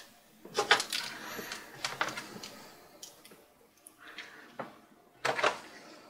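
Irregular clicks and knocks from a 2.5-inch SSD being pushed into a laptop hard-drive caddy and handled. The loudest clatters come about half a second in and again about five seconds in.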